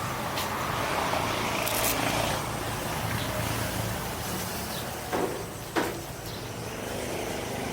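A vehicle engine running steadily with road noise. Two sharp knocks or clicks come about a second apart near the end.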